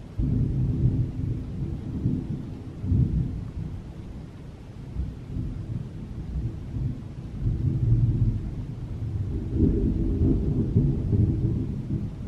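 Thunder rumbling in a severe thunderstorm. It starts suddenly and swells and fades several times, loudest about a second in and again around eight to ten seconds in.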